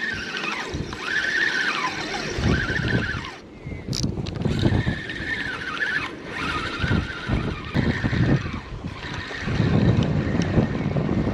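Wind buffeting the microphone while a spinning reel is cranked to bring in a small striped bass, its gears whining in spurts of about a second that rise and fall in pitch with the cranking.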